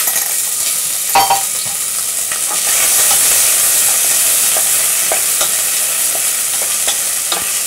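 Chopped onions sizzling in hot olive oil in a stainless steel saucepan, a steady hiss, while a wooden spoon stirs them with scattered taps against the pan. A sharper knock comes about a second in.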